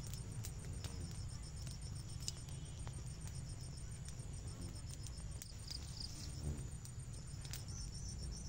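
Burning grass and brush crackling with scattered sharp snaps, over a steady high insect chirring and a low rumble.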